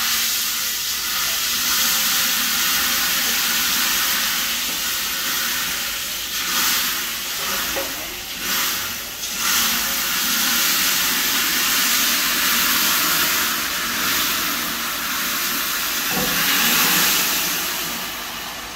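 Hot ghee with cumin seeds poured onto haleem as a tadka, hissing and sizzling loudly as it hits the dish. It starts suddenly and fades near the end.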